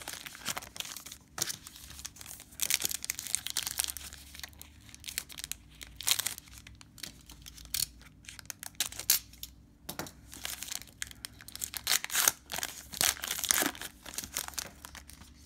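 A trading card pack wrapper being torn open and crinkled by hand, in irregular bursts of rustling and tearing.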